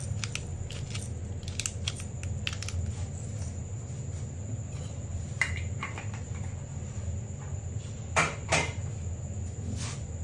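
Hand pepper grinder twisted over a pan, giving a few short crunching clicks in the first few seconds, then scattered light clicks and knocks, the loudest pair about eight seconds in, over a steady low hum.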